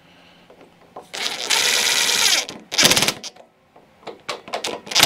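DeWalt cordless impact driver driving a screw into the mower's carburettor housing. It hammers rapidly in a long burst about a second in, then a short burst near three seconds, and another short burst at the end.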